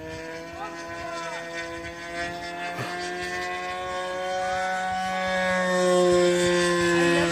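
Radio-controlled 'flying lawnmower' model aircraft flying overhead, its motor and propeller giving a steady drone whose pitch drifts slightly. The drone grows louder from about four seconds in as the model comes closer.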